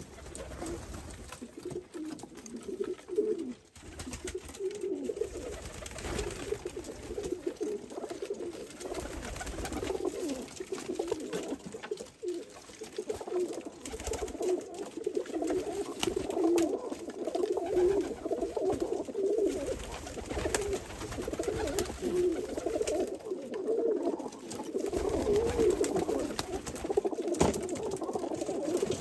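Many domestic pigeons cooing together, a continuous overlapping warble of low coos with scattered light taps.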